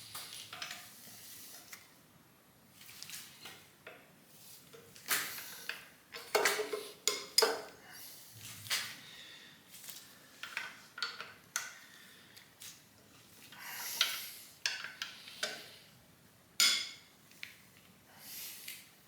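Hand tools and metal engine parts clinking and clattering in scattered, irregular knocks and taps during engine disassembly.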